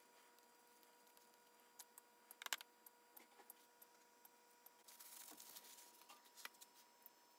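Near silence: faint room tone with a steady high hum, a few faint clicks and knocks about two and a half seconds in, and a short hiss a little past the middle.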